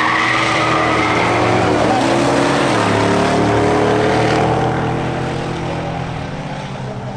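Drag-racing cars' engines, a Ford Mustang Fox Body and a supercharged Ford F-150 Lightning, running at high revs and slowly dropping in pitch as they wind down past the end of the quarter-mile run. The engines grow quieter after about four and a half seconds.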